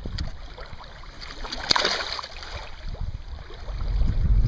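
Lake water at the shore with a brief splashing rush about two seconds in, and a low wind rumble on the microphone that grows near the end.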